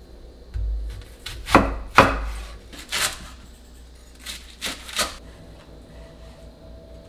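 Chef's knife chopping vegetables on a wooden cutting board: about six sharp, uneven knife strokes, the loudest two about a second and a half in.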